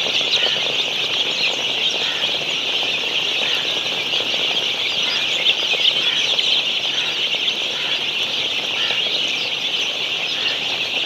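A large flock of Golden Misri chicks, about two weeks old, peeping together in a dense, continuous chorus of high chirps.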